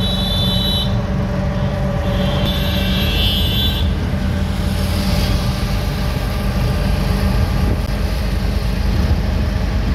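Auto-rickshaw engine running steadily with road noise, heard from inside the moving open-sided cabin. Two brief high-pitched sounds in the first few seconds.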